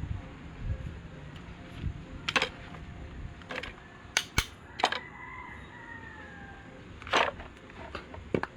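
Sharp metallic clicks and taps from small parts and tools being handled while an electric fan motor is worked on. There are about seven separate, irregular clicks, bunched mostly in the middle.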